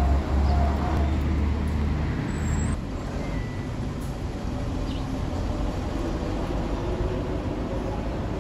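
Steady outdoor background rumble, heavy in the low end for about the first three seconds and then easing to a lighter, even noise.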